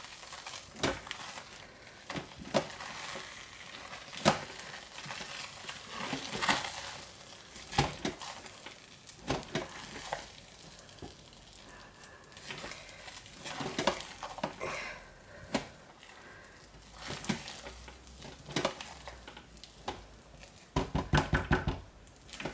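Spatula stirring thick hot-process liquid soap paste (potassium hydroxide soap at the mashed potato stage) in a crock pot: irregular squelching scrapes and clicks, then a quick run of knocks near the end.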